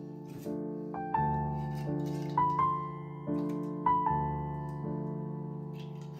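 Background piano music: slow chords struck about once a second and left to ring.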